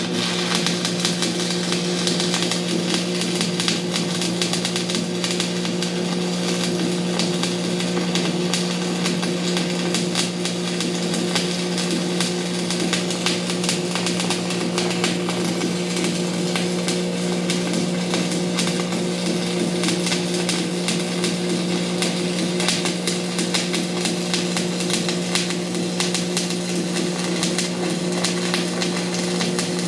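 Electric arc welder running a continuous bead on a steel wear plate: a steady sizzling crackle of the arc over a constant electrical hum.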